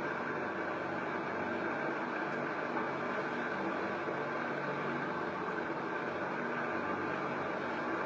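Steady mechanical hum with an even rushing noise, unchanging in level.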